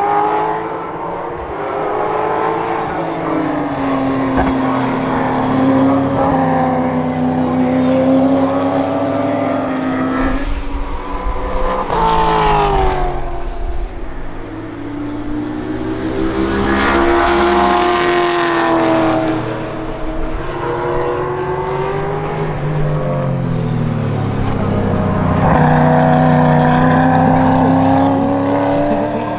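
Racing car engine, the MARC Ford Focus's 5.0-litre Ford Coyote V8, running hard at racing speed, its note falling and rising through braking and gear changes. Two loud close passes come around twelve and seventeen seconds in.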